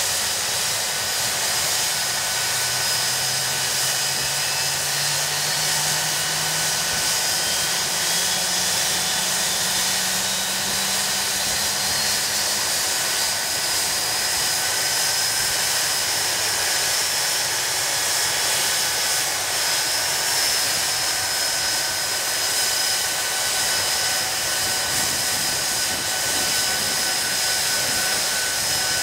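Rolls-Royce Spey turbofan engines of a Hawker Siddeley Nimrod running steadily, heard close to an intake: a loud, even rush of air with high whining tones over it. A fainter, lower tone rises slowly during the first dozen seconds.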